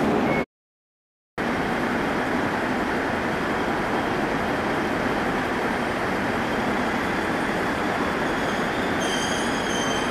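A JR East 701 series electric local train running slowly into a station platform, a steady rumble and rush. A high squeal of the brakes joins near the end. The sound cuts out completely for about a second near the start.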